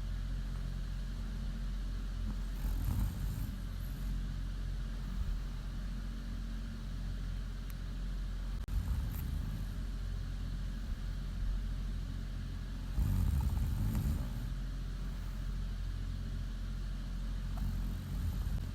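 A woman snoring in her sleep, a few snores several seconds apart, the loudest about 13 seconds in, over a steady low hum.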